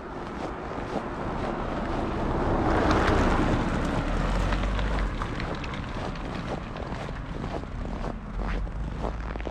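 An SUV drives past on a wintry road, its tyre and engine noise swelling to a peak about three seconds in and then fading. Under it are steady footsteps on snow, with some wind on the microphone.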